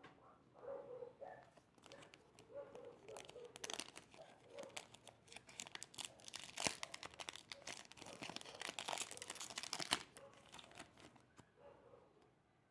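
Trading-card packet being torn open and its wrapper crinkled. There is dense crinkling and crackling through the middle, which stops abruptly about ten seconds in.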